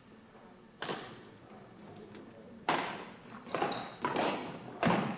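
Badminton rally: about five sharp racket strikes on the shuttlecock, echoing in the sports hall, starting with the serve about a second in and coming faster toward the end. A brief high squeak, typical of a shoe on the court floor, comes in the middle.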